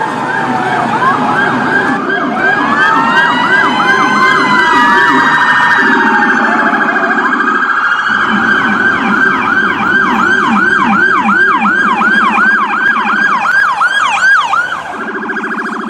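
Electronic emergency-vehicle siren tones, several sounding at once: a higher tone sweeping down over and over, about two sweeps a second, over a lower fast-warbling tone. The pattern shifts every few seconds.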